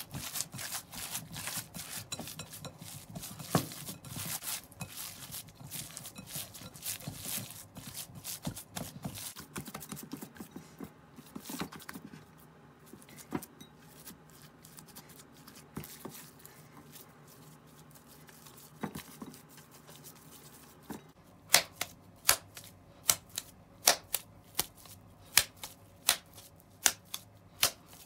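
Hands squeezing and kneading raw ground meat mixed with chopped onion in a glass bowl: a dense run of small wet clicks in the first part, sparser after. About three quarters of the way in, sharp slaps begin, regular and about 0.7 s apart, as the hamburg steak patty is tossed from palm to palm to press the air out.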